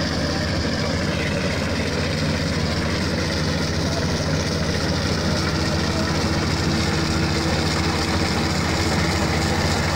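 Kubota DC35 rice combine harvester running steadily as it cuts and threshes standing rice: the diesel engine's even drone and the machinery working under load.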